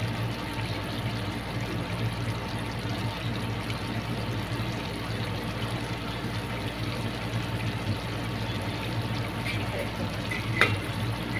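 Chicken adobo simmering in an aluminium pot, its sauce bubbling steadily over a steady low hum. A single sharp click near the end.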